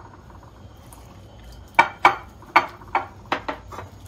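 A hand mixing flour dough in a glass bowl, clicking sharply against the glass about eight times in the second half.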